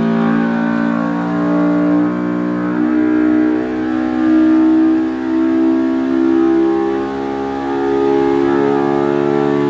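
Polaris RZR Pro R's four-cylinder engine at full load on an engine dyno during a power pull, its pitch climbing steadily as the revs rise from about 6,500 to over 8,000 rpm.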